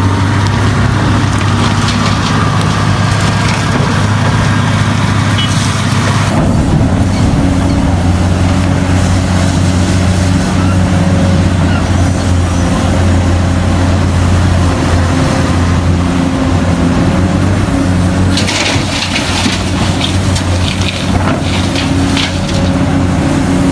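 Caterpillar 385C excavator's C18 diesel engine running steadily under load, a low drone, with rock and dirt crashing and rattling about six seconds in and again from about 18 to 22 seconds in.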